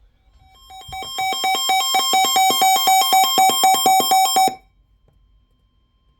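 Electronic alert tones: rapid, evenly pulsed beeps stepping between two or more pitches for about four seconds, then cutting off suddenly.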